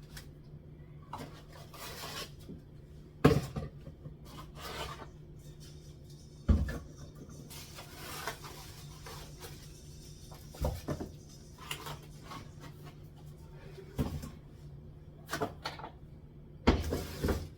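Groceries and containers being taken off a kitchen cupboard shelf and set down: scattered knocks and clunks of packets, jars and tins, with rubbing and sliding sounds between them, over a steady low hum.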